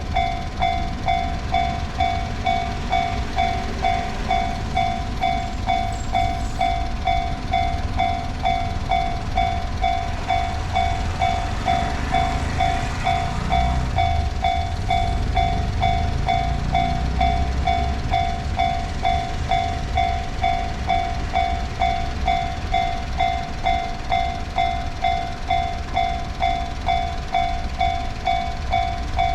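A Japanese level-crossing's electronic warning bell rings steadily as an evenly repeating ding. A passing Nambu Line train adds a rumble that swells through the middle and fades again.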